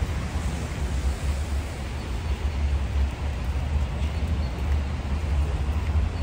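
City street ambience: a steady low rumble under an even hiss, with no distinct events standing out.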